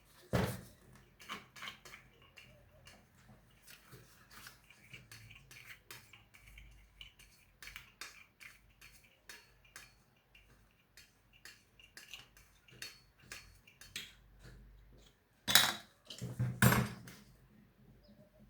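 Metal tools and ceiling fan parts clinking and tapping as the fan is taken apart, with two loud knocks near the end.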